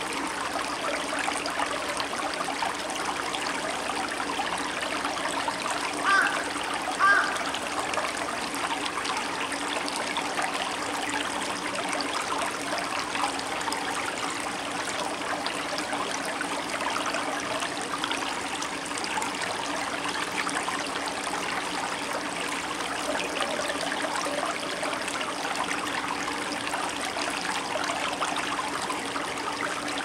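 Shallow stream flowing and trickling over flat stones in a steady babble, with two brief, louder sounds about six and seven seconds in.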